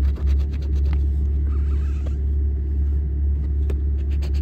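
A coin scraping the latex off a scratch-off lottery ticket in quick strokes for about the first second, with a few more single scrapes near the end. Under it runs a steady low rumble, which is the loudest thing throughout.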